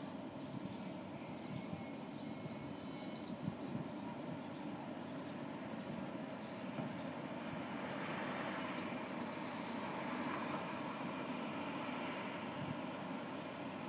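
City street ambience: a steady hum of traffic, swelling as a vehicle passes about two-thirds of the way in. Small birds chirp over it, with two quick rattling trills.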